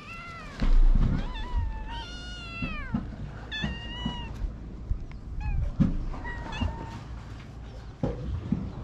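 Stray cats, a mother and her kittens, meowing again and again, with one long, high meow about two seconds in. A low rumble on the microphone about a second in.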